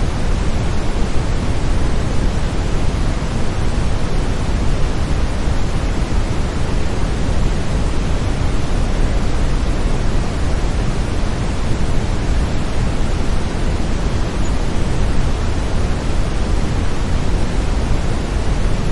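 Steady brown noise: an even, deep hiss with its weight in the low end, unchanging throughout.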